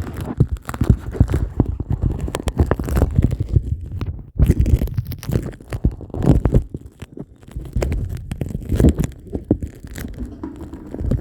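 Toilet flush recorded with the microphone under the water in the bowl: muffled churning, gurgling water and bubbles, with a brief dip about four seconds in.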